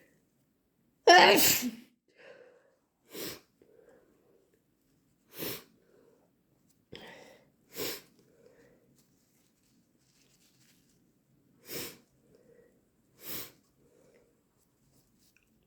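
A person sneezing repeatedly with hay fever: one loud, wet sneeze about a second in, then five shorter sneezes spaced a couple of seconds apart, with short breaths between them.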